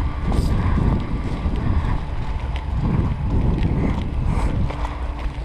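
Wind buffeting a body-worn camera's microphone in rough low swells, with a few faint clicks.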